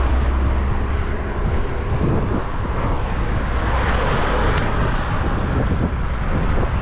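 Wind and road noise on the microphone of a camera mounted on a moving bicycle, with motor traffic passing close by, including a van about halfway through.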